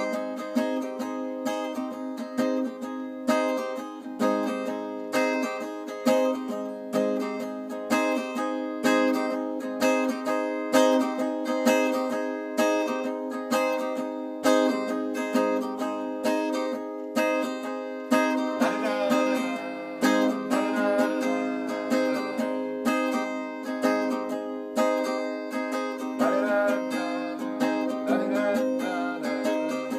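Acoustic guitar strummed in a steady rhythm of repeated chords.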